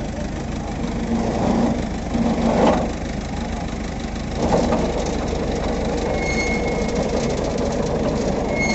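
HMT 5911 tractor's diesel engine running close by, a steady low rumble that swells louder twice in the first half.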